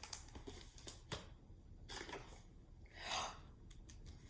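Faint rustles of a picture book's paper page being turned, with a few light taps of handling and a longer soft rustle about three seconds in.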